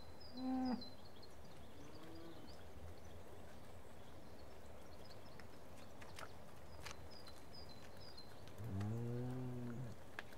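Cattle mooing: a short, higher moo near the start, a faint one about two seconds in, and a long, deep moo about nine seconds in, over faint high chirps and a low steady rumble.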